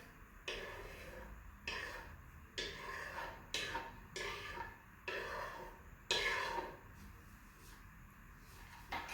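Seasonings being added to a pot of chopped calaloo: a run of about seven short clatters and rustles, roughly one a second, stopping about seven seconds in.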